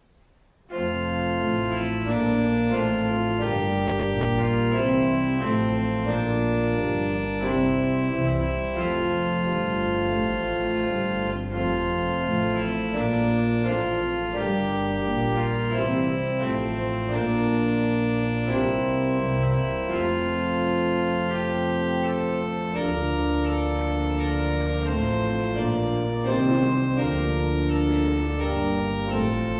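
Pipe organ begins playing about a second in, held chords changing every second or so, with deep bass notes coming in past the middle.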